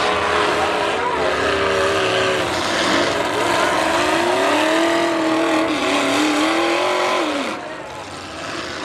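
V8 demolition derby cars' engines revving up and down, several at once, their pitches rising and falling as the cars push and ram. The engine noise falls away noticeably near the end.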